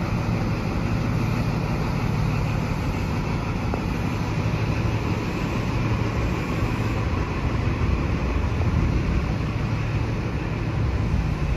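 XPT diesel power car's engine running steadily at a platform, a low steady drone.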